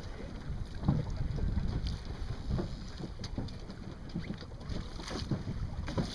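Wind buffeting the microphone over water splashing against a sailboat's hull, with scattered small knocks and splashes.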